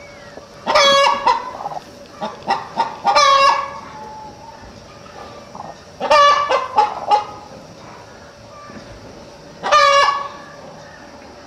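Broody hen calling loudly in several bursts a few seconds apart, with the last one near the end. These are the calls of a sitting hen disturbed by a hand reaching under her.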